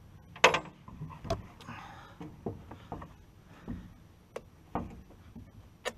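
Scattered clicks and knocks of a chainsaw's bar and chain being handled on a plank truck bed while the freshly filed chain is checked for tension.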